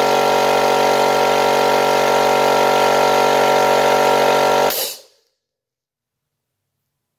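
Proteco K-1100 1.1 kW oil-lubricated air compressor running steadily, its motor and pump filling the tank to about 8 bar. The sound cuts off suddenly about five seconds in.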